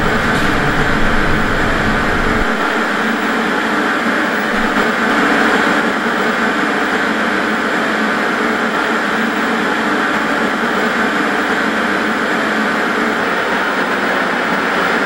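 A loud, steady rushing noise with no distinct tone or beat; its deep rumble drops out a couple of seconds in.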